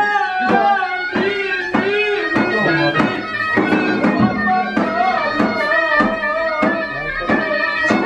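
Traditional folk music: a wavering, ornamented melody line over a steady drum beat.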